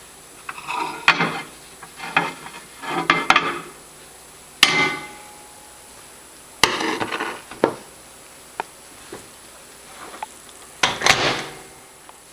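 Kitchen clatter of dishes and utensils being handled: a series of separate bursts of knocks and clinks, the sharpest about four and a half, six and a half and eleven seconds in.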